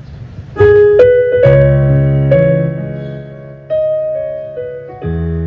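Keyboard playing sustained piano chords, a new chord struck every second or so and left to ring.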